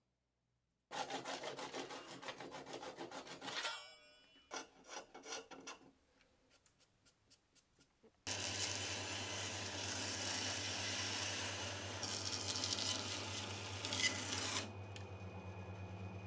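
Hand saw cutting through dense carob wood in quick back-and-forth strokes that slow and fade out about four seconds in. About eight seconds in, a bandsaw is heard cutting the wood, a loud steady rasp over the motor's hum. Near the end the cutting stops and the bandsaw runs on more quietly with a steady hum.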